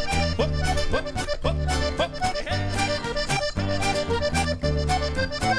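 Accordion playing an instrumental passage of a traditional Uruguayan polca, over steady bass notes about twice a second.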